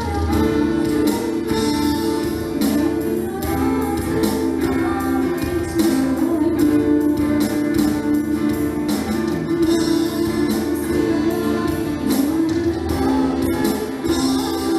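A school orchestra playing a song, pitched instruments over a steady percussive beat.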